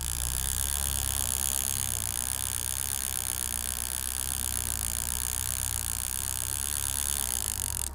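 Steady low drone of a boat's engine running under way, with a constant hiss of wind and water over it. The sound changes abruptly near the end.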